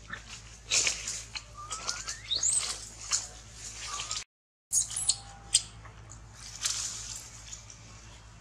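Leaves and branches rustling and crackling in short bursts as young macaques climb through a tree, with a few thin high squeaks, one rising sharply about two seconds in. The sound cuts out briefly a little past four seconds.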